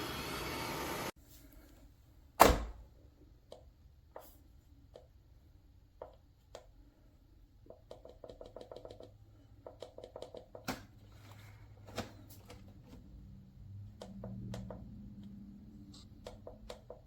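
A steady rushing noise cuts off abruptly about a second in. Then one loud knock, followed by many light plastic clicks and short rattling ticks, as parts of the robot vacuum's docking station and tanks are handled.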